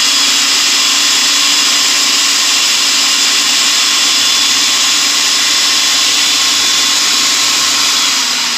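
Food processor running steadily, its motor spinning a dry mix of flour, baking powder, sugar, nutmeg and salt together.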